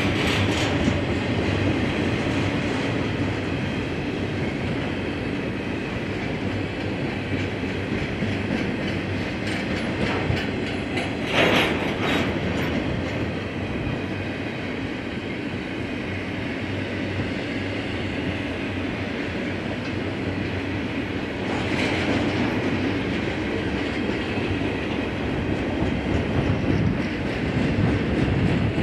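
BNSF freight train cars rolling past: a steady rumble with the clickety-clack of wheels over the rails, and brief sharper, higher-pitched flare-ups about 11 and 22 seconds in.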